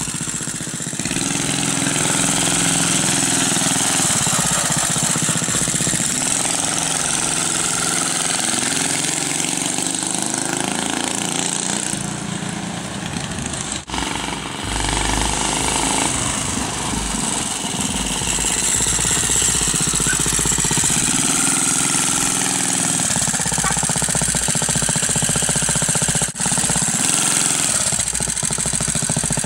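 Small single-cylinder engine of a homemade motorized bicycle running, its speed rising and falling.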